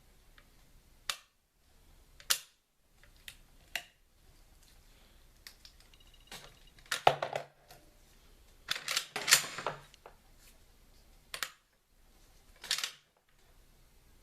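Sharp metallic clicks and clacks of a Ruger Mini-14 rifle being handled, scattered singly, with two longer bouts of clattering about seven and nine seconds in.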